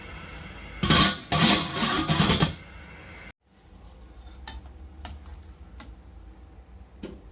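Kitchen cooking noise: a loud, noisy burst of pan and utensil sounds lasting about a second and a half, starting about a second in, then several light taps of a utensil.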